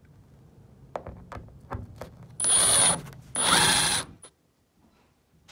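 A power drill run in two short bursts about a second apart, the second a little longer, with a steady high whine. A few sharp clicks and knocks come before it.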